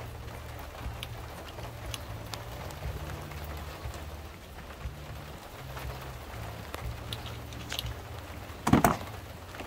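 Engine coolant dripping and trickling from a disconnected cooling hose into a container, as small scattered ticks over a low steady hum. A brief louder noise comes near the end.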